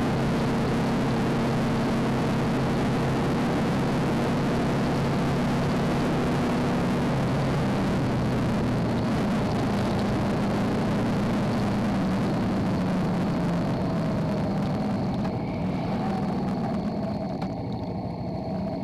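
Motorcycle engine running at a steady road speed under heavy wind and road noise, as picked up by a handlebar-mounted dash recorder's microphone. The wind hiss falls away noticeably in the last few seconds.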